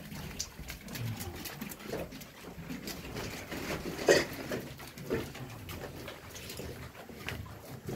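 Animal calls in the close echo of a small cave, the strongest about halfway through, among scattered knocks and shuffling.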